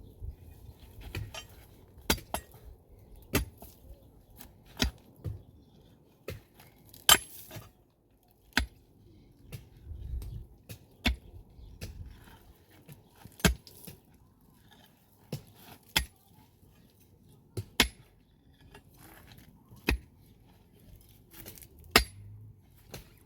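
A series of sharp knocks or clacks, hard objects striking, repeating irregularly about every one to two seconds.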